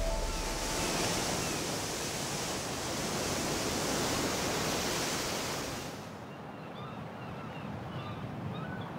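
Sea surf breaking and washing over rocks, a dense steady rush that drops away about six seconds in, leaving quieter surf with a few faint bird calls.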